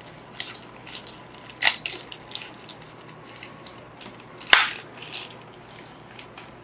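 A retail knife package being opened by hand: crinkling and small clicks of packaging, with two sharp snaps, one under two seconds in and a louder one about four and a half seconds in.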